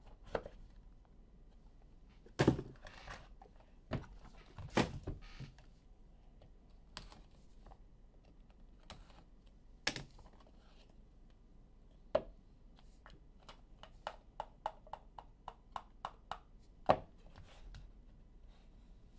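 Trading cards and their packaging handled on a table: scattered sharp knocks and taps, with a quick run of light clicks, about four a second, a little past the middle.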